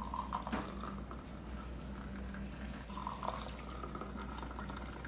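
Tea bubbling at a boil, a steady seething with small irregular bubble pops, over a low steady hum.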